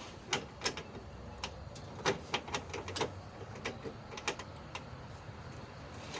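Irregular sharp clicks and light knocks of hand tools against metal parts while working to remove a car's engine cooling fan, over a faint steady hum.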